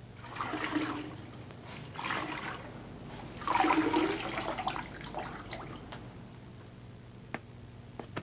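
Water splashing and pouring in three short bursts, the longest and loudest about three and a half seconds in, then a couple of light clicks near the end.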